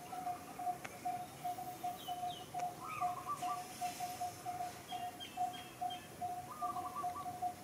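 Outdoor animal calls: a single note repeated evenly, about four times a second, with a few short chirps over it about three seconds in and again near the end.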